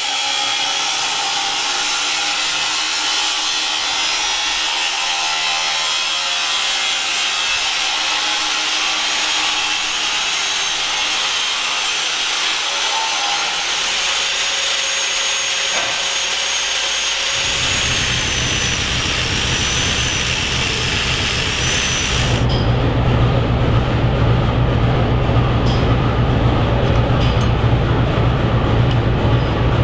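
Workshop power tool running: a steady high-pitched grinding hiss with a faint wavering whine. About 22 seconds in it cuts off, leaving a lower, louder machine hum.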